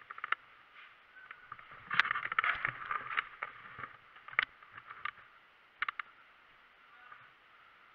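A run of sharp clicks and knocks. The loudest knock comes about two seconds in, followed by a second and a half of dense rattling and knocking, and two quick clicks come close together near six seconds.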